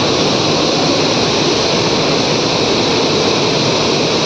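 Water spraying under pressure from a leaking pipe fitting on the water line, a loud, steady hiss and splash with no letup.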